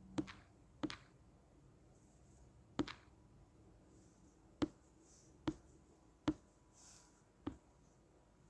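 About seven sharp clicks at irregular intervals over a faint hiss, heard on a recorded phone call just after the talk has ended.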